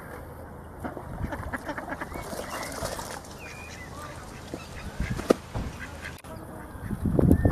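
Ducks at a pond quacking and calling, several birds at once, with short sharp clicks among the calls. A louder burst of noise rises near the end.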